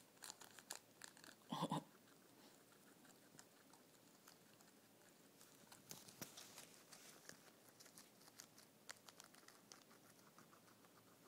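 Guinea pig chewing red leaf lettuce held in a hand: a quick, irregular run of small crunching clicks. A short, louder burst comes about a second and a half in.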